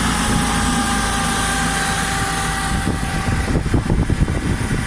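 Toyota 7FD15 forklift's diesel engine running steadily, with a faint whine above the engine note; about three and a half seconds in, the sound turns uneven and pulsing for a moment.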